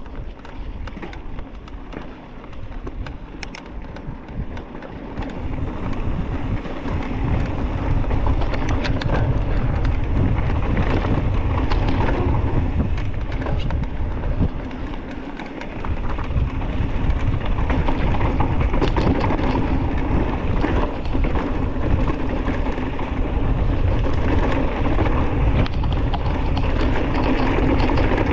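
Wind rushing over the camera's microphone as a mountain bike rolls down a dry dirt trail, with tyre crunch and small clicks and rattles from the bike. The rush grows louder about six seconds in, dips briefly, and swells again around sixteen seconds.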